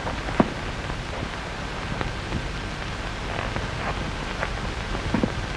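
Steady hiss and crackle of an old film soundtrack, with a few sharp pops, the loudest about half a second in.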